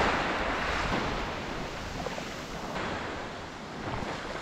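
Small waves breaking and washing up over the sand at the water's edge: a steady wash of surf that eases slightly in the middle and builds again near the end.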